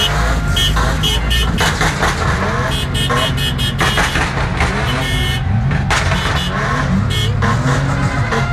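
Loud, slow-moving car traffic: engines running, with car horns honking in short repeated toots.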